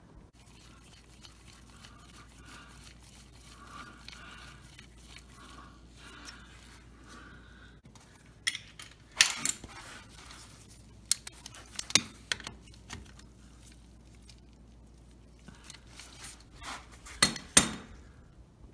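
Sharp metal clinks and scrapes of a hand tool on the oil drain plug as it is refitted and tightened into the oil pan, several separate clicks in the second half, loudest near the end.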